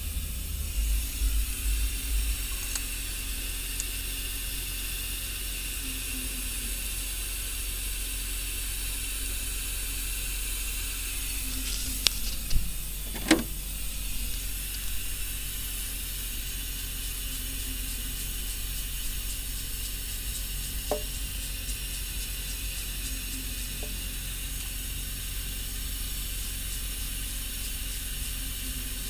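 Steady hiss over a low hum. About halfway through come a few light metallic clicks and a brief squeak, from a hand tool working on a truck diesel engine's cylinder head during fuel-injector reassembly, with two fainter clicks later on.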